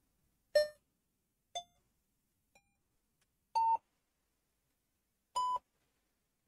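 Start-sequence beeps from an Arduino lap counter's buzzer: short beeps about a second apart, each a little higher in pitch, as the red gantry lights come on one by one. After a slightly longer pause a final, higher beep sounds as the lights go out for the start.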